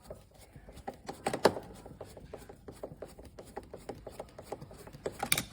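Irregular metallic clicks, scrapes and knocks of a screwdriver working the door-spring tension adjustment screw of a dishwasher. A sharper knock comes about a second and a half in, and a cluster of knocks comes near the end.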